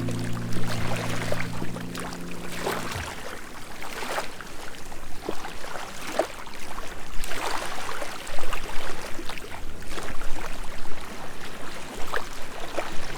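Background music fades out about three seconds in, leaving small sea waves lapping and splashing in an irregular, uneven wash.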